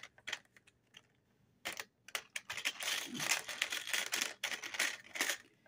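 Small metal heart pieces clicking and rattling against a plastic tray as they are handled and pressed flat, with light rustling. After a short lull near the start it becomes a quick, dense run of clicks.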